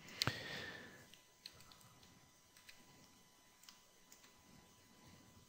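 Faint, scattered clicks of a computer mouse and keyboard as a 3D modelling program is worked: one sharper click with a brief rush of noise just after the start, then a few isolated soft clicks about a second apart.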